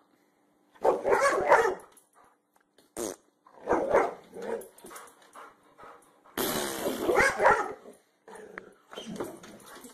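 Boxer dog vocalizing in about four short bouts of growly barking, each lasting about a second, with brief pauses between.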